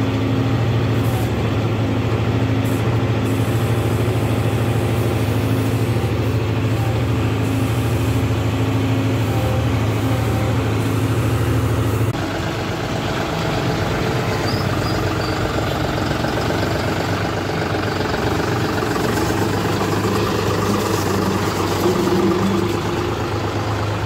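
John Deere 5310 tractor's diesel engine running steadily with a strong low hum while the mounted backhoe is worked. About halfway through, the sound changes abruptly to a rougher, noisier engine sound.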